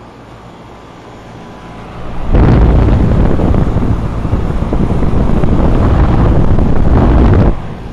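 Lennox air-conditioner condenser running with a steady low hum; about two seconds in, loud wind buffeting on the microphone drowns it for about five seconds, then cuts off suddenly.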